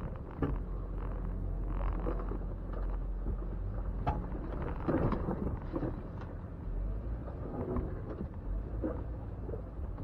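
Jeep Wrangler engine running with a low, steady rumble as it crawls over a rocky trail, with scattered knocks and crunches from the tyres and body on rock.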